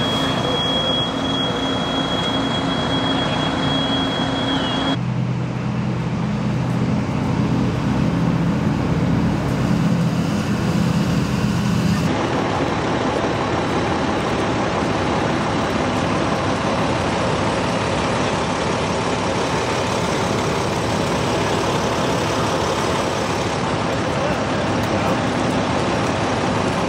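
Fire apparatus diesel engines running steadily, with a thin high whine over the first five seconds or so. The sound changes abruptly about five and twelve seconds in, ending as a denser, even rumble.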